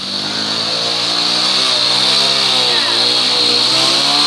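Small step-through motorcycle engine revving up and down repeatedly as the rear wheel spins and slides in deep mud.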